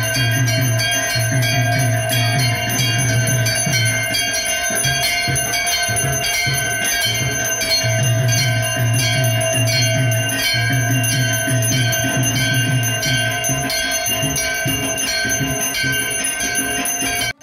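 Brass temple bell ringing steadily through a puja, struck about twice a second, over a low drone that drops out now and then.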